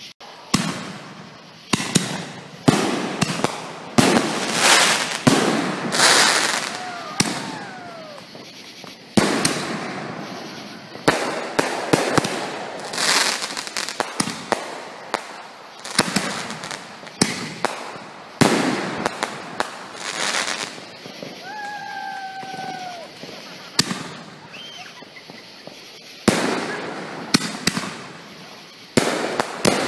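Aerial fireworks bursting overhead: a long run of sharp bangs, some in quick clusters, each trailing off in crackle and echo.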